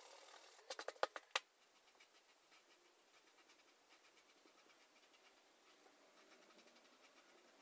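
Pencil eraser rubbing on paper, sped up, at the start. About a second in there is a quick run of sharp clicks. After that a Sharpie marker scratches faintly on paper as it fills in black areas.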